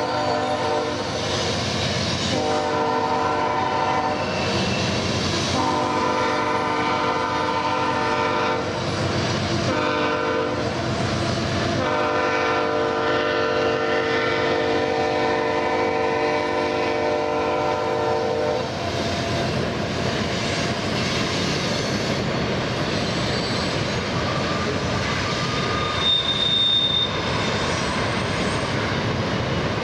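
Diesel locomotive air horn sounding a salute: several held chords broken by short gaps, the last and longest ending about two-thirds of the way through. After it comes the steady rolling noise of the freight cars crossing the steel bridge, with a thin high squeal near the end.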